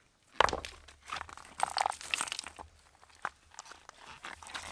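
Dry leaves and twigs crunching and rustling in irregular bursts, with a few sharp snaps.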